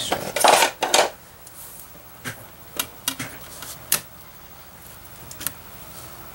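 Handling of a clear plastic ruler and paper on a craft table: a brief scraping rustle about half a second in, then a few sharp light clicks and taps as the ruler is set down and lined up on the page.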